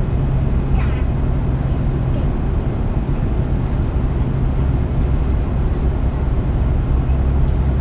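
Airbus A340-300 cabin noise in flight: the steady low drone of the engines and rushing air, with a constant deep hum.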